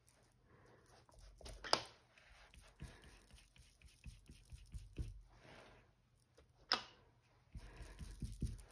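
Faint handling noise from dabbing craft ink onto paper through a stencil with a makeup sponge: soft scuffs on the paper and low thumps on the table. Two sharp taps stand out, the louder about two seconds in and another near seven seconds.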